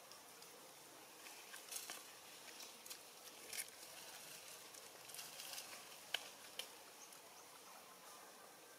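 Faint outdoor background hiss with scattered soft rustles and a few sharp clicks, the sharpest about six seconds in.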